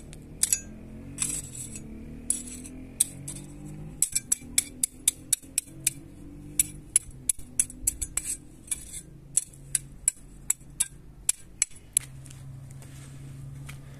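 Small metal hand trowel digging into dry, stony soil: repeated sharp scrapes and clinks of the blade against grit and small stones, two or three a second, stopping about twelve seconds in.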